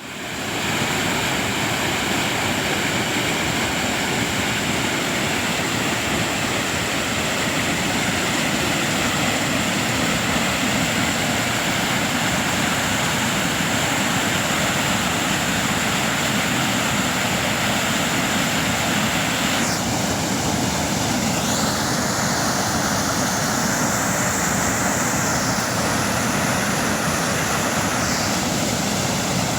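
Nadumalai river flowing over rocks: a steady, unbroken rush and gurgle of running water.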